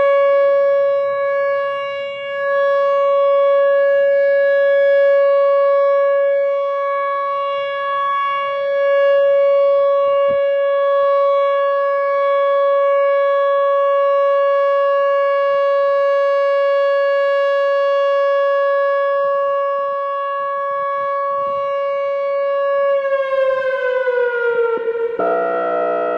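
Loud siren-like emergency alert alarm holding one steady pitch for over twenty seconds. Near the end its pitch slides down, and shortly before the end it gives way to a harsher buzzing tone.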